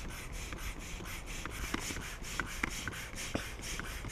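Air pump inflating an inflatable boat: quick, even whooshes of air, about five a second, with small clicks in between.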